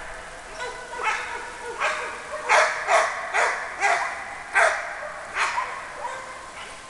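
Labrador barking at a bucket of smelly bait: a series of about nine single barks, spaced about half a second to a second apart, given as a trained bark indication.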